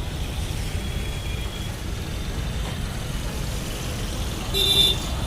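Road traffic running steadily, with a short vehicle horn beep near the end.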